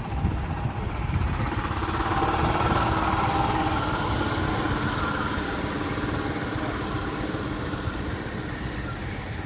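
An engine running steadily. It grows louder about two seconds in, then slowly eases off.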